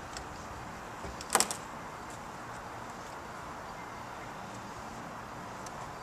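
Spigot being screwed by hand into the fitting of a 55-gallon plastic barrel: one sharp knock about a second and a half in, then a few faint ticks, over steady background noise.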